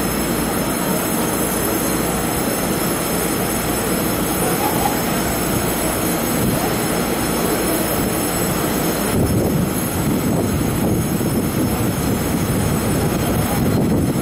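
Taiwan Railways EMU500 electric train standing at the platform with its equipment running: a steady hum and hiss that gets deeper about nine seconds in.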